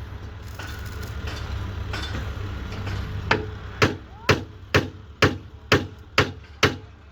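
A low steady mechanical rumble, with eight sharp knocks striking about two a second in the second half.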